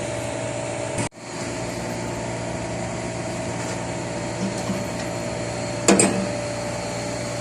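Steady hum of running air-conditioning or refrigeration machinery, a fixed drone with a steady whine. It cuts out for an instant about a second in, and there is one sharp knock about six seconds in.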